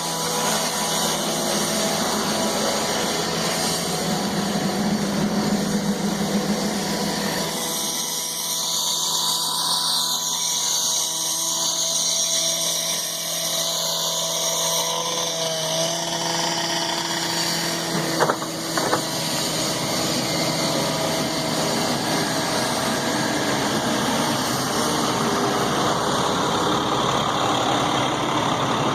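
Construction machinery engine running steadily, with two short sharp knocks about two-thirds of the way through.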